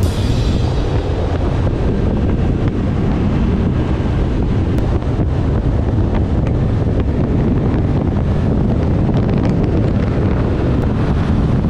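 Loud, steady wind rushing over the microphone of a motorcycle at riding speed, with the bike's running sound mixed in underneath.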